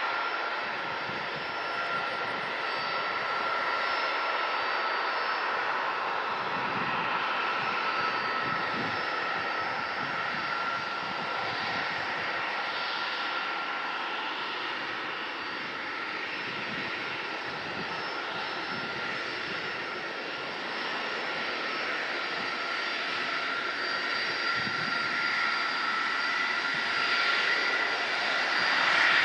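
Boeing 747SP's four turbofan jet engines running, a steady rushing noise with a high whine over it, growing a little louder near the end.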